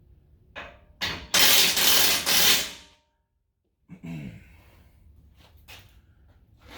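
Impact wrench run in one loud burst of about a second and a half, driving home the winch mount bolts, with a click just before it and a few small clicks of handling afterwards.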